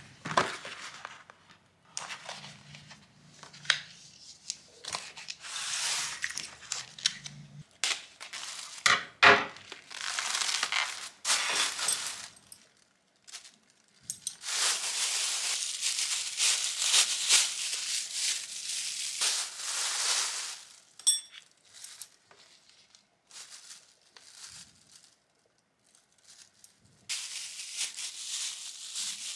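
A thin plastic bag crinkling and rustling in bursts as it is handled, filled and knotted, with a few light clicks.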